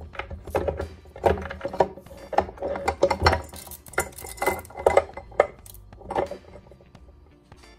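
Steel gears, shafts and small parts inside a Ford T18 four-speed manual transmission clinking and clattering against each other and the case as they are worked by hand during teardown. The knocks come irregularly, some ringing briefly, and die down near the end.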